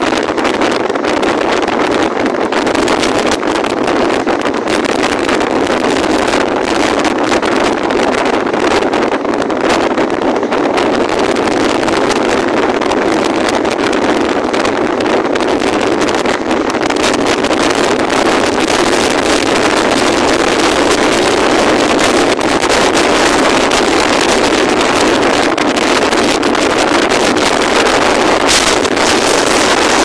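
Strong wind blowing across the microphone: a loud, steady rushing with constant fine buffeting.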